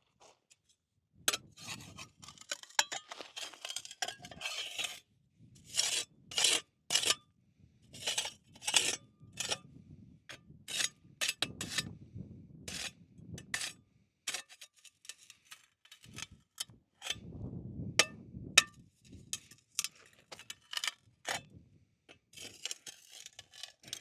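Rocks and gravel scraping and clinking in a run of sharp, irregular strokes as stones are shifted to clear the blocked outflow of a slow-running spring.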